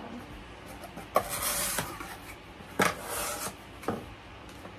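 Cardboard box being opened by hand: the flaps scrape and rustle, with sharp snaps about a second in, near three seconds and near four seconds.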